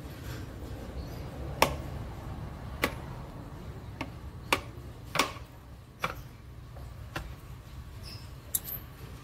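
Sharp metallic clicks of pliers working at a refrigerator's copper capillary tube, about eight scattered clicks over a steady low hum.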